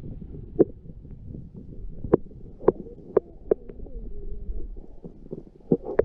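Muffled underwater sound picked up by a camera submerged in a shallow creek: a low rumble with sharp clicks and knocks every second or so.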